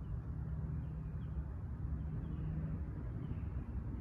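Steady low rumble of an engine running somewhere out of sight, with a held hum, and a few faint bird chirps over it.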